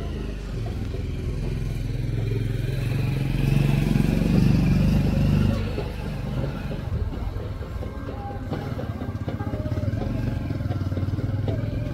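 A motorcycle engine running close by. It grows louder for a couple of seconds in the middle, then eases back.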